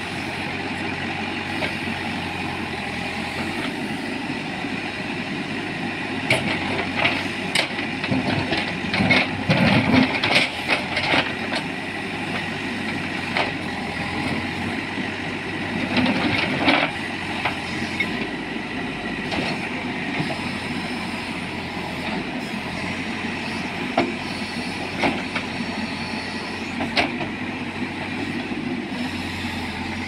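Manitou backhoe loader's diesel engine running steadily while it digs, with clusters of sharp knocks and clatter as the bucket works through rocky soil, busiest about a third of the way in and again around halfway.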